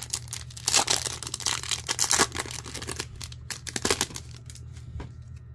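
Wrapper of an Upper Deck hockey card pack being torn open and crinkled, in irregular rips and rustles with the loudest a little under a second in and around two seconds in.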